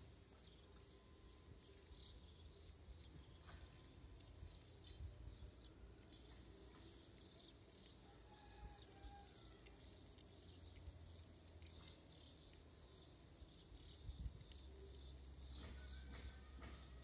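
Two kittens chewing dry cat food: faint, quick, crisp crunching clicks that run on without a break.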